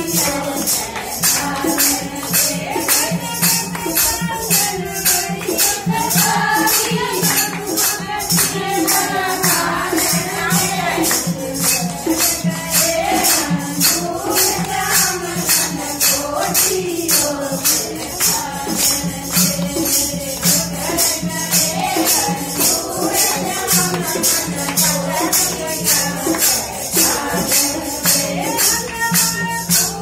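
Group of women singing a Haryanvi bhajan, a Hindu devotional song, in chorus. Hand claps and jingling percussion keep a steady beat.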